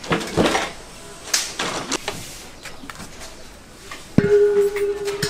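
A few sharp knocks and clatters. About four seconds in comes a harder knock, followed by a steady ringing tone.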